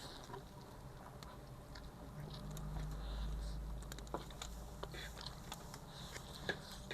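Close-up chewing and biting of food, with scattered small wet clicks and crunches over a low steady hum.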